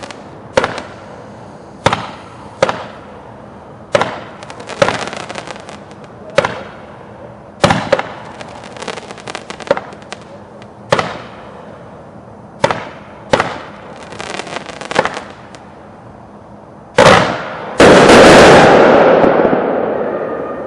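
Megaton consumer firework firing a series of shots with tails, crackles and bombs: a sharp bang every one to two seconds, several trailed by a spell of crackling. Near the end come two very loud bangs close together, the second fading away slowly over about three seconds.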